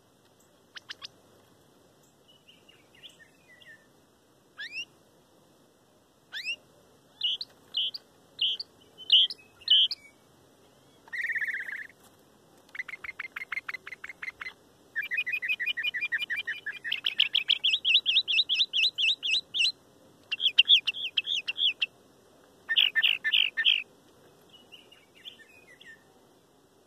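Mockingbird singing: a string of varied phrases, short chirps and whistles at first, then fast series of repeated notes, each phrase repeated several times before the next, loudest in the second half.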